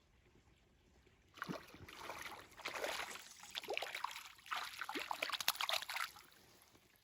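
Water splashing and sloshing beside a small boat, a run of irregular splashes starting about a second in and dying away near the end.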